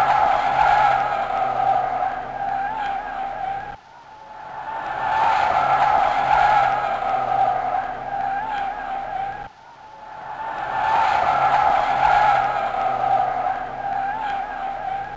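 Volvo MCT125C skid steer loader running, a loud high-pitched whine that wavers slightly in pitch. The same few-second stretch repeats about three times, each time swelling up and then cutting off suddenly.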